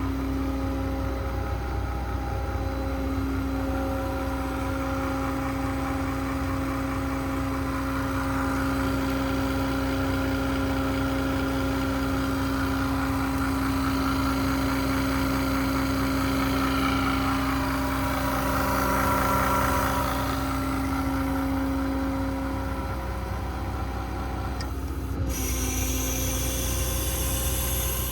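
Ford 6.7 Power Stroke V8 diesel running steadily, a low rumble with a steady whine over it. The sound swells slightly a little past the middle, and a hiss comes in near the end.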